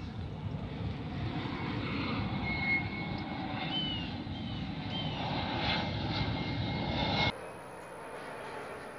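Small jet airplane flying low overhead: a steady low rumble that grows louder over several seconds, with a few short bird chirps above it. About seven seconds in, the sound cuts abruptly to a quieter, more distant jet hum.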